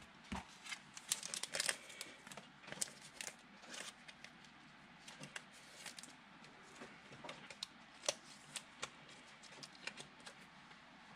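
Football trading cards being handled and sorted by hand: faint, irregular flicks and rustles, busiest in the first few seconds and thinning out after.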